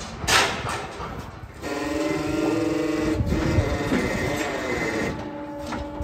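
A hoof-trimming chute's electric leg-lift motor running steadily with a hum of a few fixed tones, starting a little under two seconds in, as the cow's hoof is raised onto the support. A few knocks of metal come before it.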